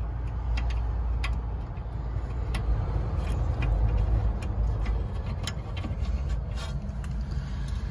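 Small irregular metallic clicks and taps as a brake caliper and pads are handled and fitted over a rear brake disc by hand, over a steady low rumble.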